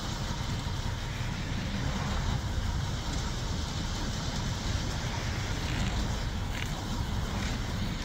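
Steady low outdoor rumble, with a faint scraping as a concrete bull float slides back and forth over a freshly poured driveway slab.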